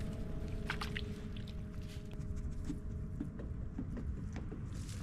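Wind rumbling on the microphone and water around a small rowboat, with a few light clicks and knocks. The last held notes of background music fade out over the first few seconds.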